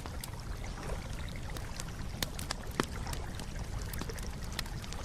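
Wood campfire crackling: irregular sharp pops and snaps, a few louder than the rest, over a steady low rumble.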